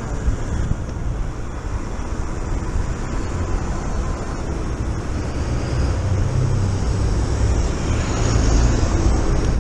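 Wind buffeting the microphone over the rumble of an electric mountain bike riding on the road, growing louder near the end.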